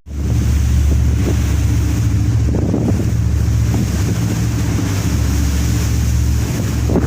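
Strong wind buffeting the microphone over a rough sea, a steady low rumble under a hiss that swells in a few gusts.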